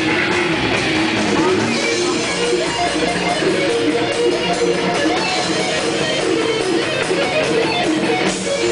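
Live heavy metal band playing: electric guitar over bass guitar and drums, loud and continuous.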